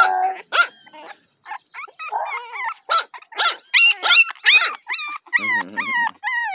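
American Bully puppies yapping and whining in short high-pitched yips that drop in pitch, coming in a quick run in the second half.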